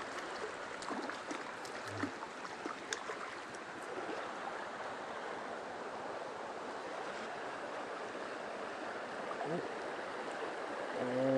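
Mountain stream running with a steady rush of water, with a few faint clicks and taps in the first few seconds.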